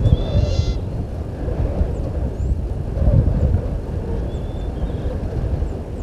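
Gusty low rumble of wind buffeting an outdoor microphone. A short bird call rich in overtones comes near the start, and a few faint high chirps come later.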